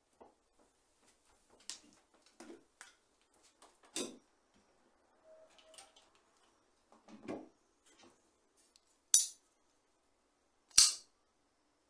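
Hands handling a steel bicycle frame: scattered soft knocks, taps and rubs, with two sharp clicks near the end.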